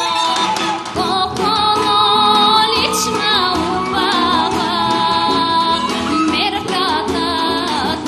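A woman singing a Bulgarian folk song with an ornamented, wavering melody over instrumental accompaniment.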